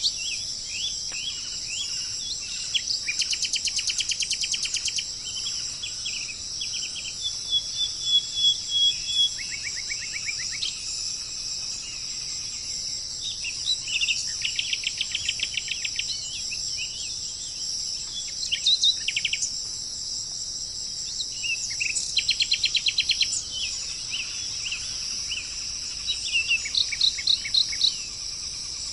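A steady, high-pitched insect chorus, like crickets, with songbirds calling over it. Several times the birds give short trills of rapid repeated notes lasting a second or two.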